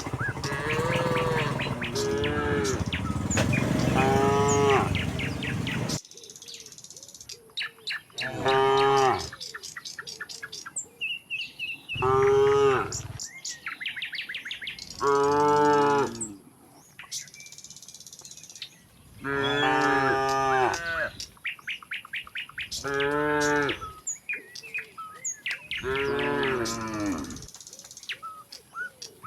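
Cattle mooing over and over, about eight long calls one after another, with birds chirping between them. A rough low rumbling noise lies under the first few calls and stops suddenly about six seconds in.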